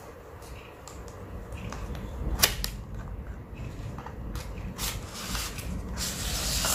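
Cardboard retail box being opened by hand: scattered clicks and scrapes of the box flap and packaging, with a sharp click about two and a half seconds in and a longer scraping rustle near the end as the inner tray is slid out.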